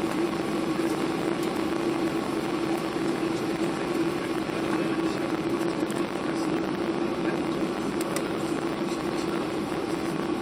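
Steady in-flight cabin noise of a Boeing 737-800: a constant rush of engine and airflow noise with a steady low hum.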